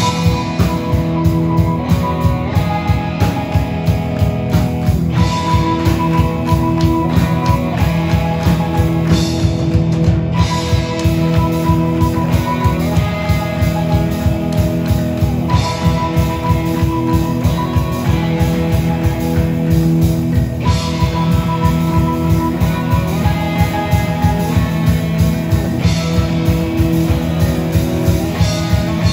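Live rock band of electric guitars, bass, keyboard and drum kit playing loudly, kicking in sharply at the start and carrying on with a steady driving drum beat.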